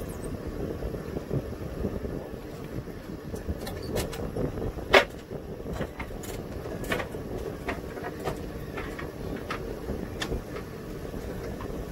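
Sailboat's inboard diesel engine running at low speed while backing, with a sharp knock about five seconds in and a few lighter clicks and knocks after it.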